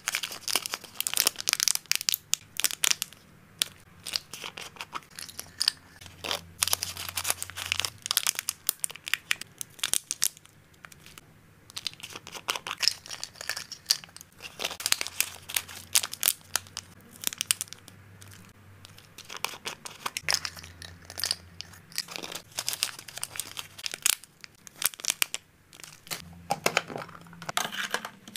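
Plastic zip bags and small plastic tubs crinkling and clicking as they are handled. Hard hamster treats tap against a metal spoon and the plastic as they are scooped in. The sound comes in bursts of crackles and taps, with short quieter pauses.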